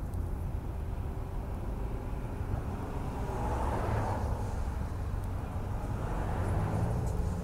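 Motor-vehicle engine rumble from road traffic, steady and low, with a vehicle passing by that swells and fades about four seconds in.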